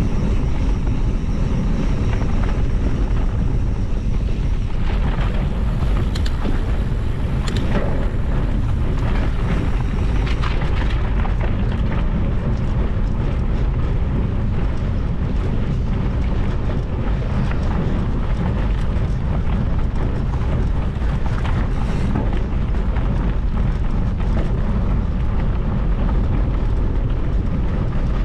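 Steady wind rumble buffeting the microphone of a moving camera, with a few short rattles and knocks about 6, 8, 10 and 22 seconds in.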